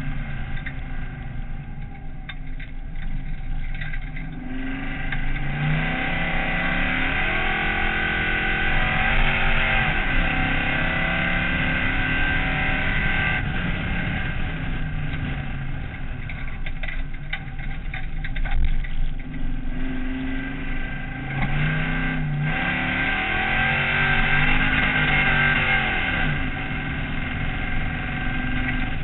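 Dirt-circuit race car's engine heard from inside the cabin under racing load, the revs climbing and falling as the car goes through the corners and straights, with two marked swells about a quarter and about three quarters of the way through.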